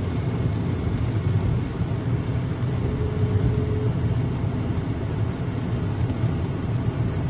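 Car driving in rain, heard from inside the cabin: a steady engine and road rumble under a hiss of rain and wet tyres, with a thin steady hum for about a second roughly three seconds in.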